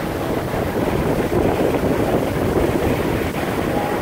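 Heavy wind noise on the microphone over a steady low rumble and the wash of choppy lake water, as from a boat under way.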